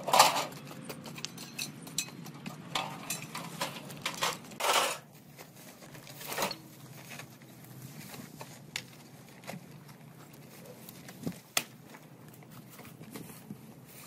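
Scattered clinks, knocks and scrapes of manual clearing work with hand tools and debris: a loud knock right at the start, a cluster of them about four to five seconds in, then quieter with a few single sharp ticks.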